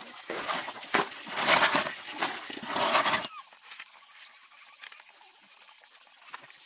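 Handfuls of river snails being scooped out of water in a plastic basin: shells clattering and water splashing in quick bursts, loud for about three seconds and then much quieter as the hands work in the water.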